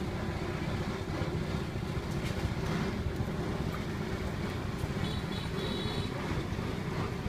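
Steady low rumble of background noise, with a few faint high tones about five seconds in.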